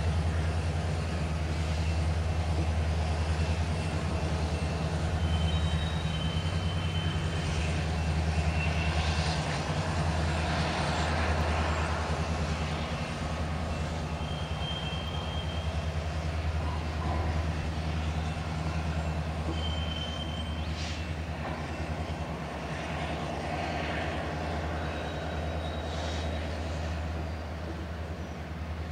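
Diesel freight locomotives running with a steady low drone as the train moves slowly, with wheel and rail noise and a few short high-pitched squeals.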